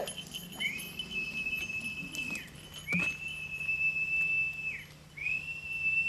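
Three long, steady whistles on one high note, each about two seconds, each dropping in pitch at its end: a falconer's whistle calling a trained bird of prey to the post.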